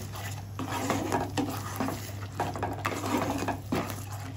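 Spatula stirring and scraping a thick spice paste around a non-stick kadai, in irregular strokes about twice a second.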